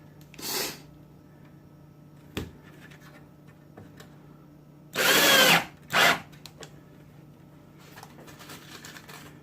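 Cordless drill driving wood screws: a short run about half a second in, a longer run with a wavering motor whine about five seconds in, then a brief final burst. A single knock comes about two seconds in.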